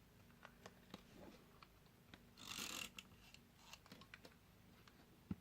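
Faint handling of paper and craft tools on a desk: scattered light clicks and taps, a short paper swish about halfway, and a soft knock near the end.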